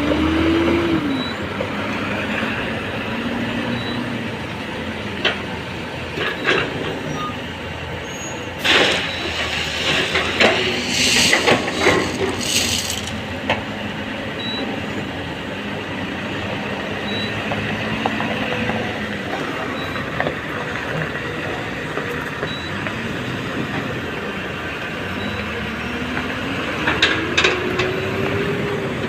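Heavy diesel engine of a Hyundai 210 excavator running under load, its pitch rising and falling several times as the digging and slewing cycles come and go, while it loads a tipper truck. A stretch of hissing and clattering comes about nine to thirteen seconds in.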